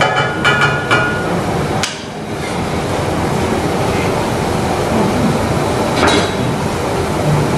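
Cooking at a stainless steel wok: a cluster of ringing metallic clinks as the wooden spatula works the pan in the first second or so, a sharp click about two seconds in, and another clink about six seconds in, over a steady rushing noise.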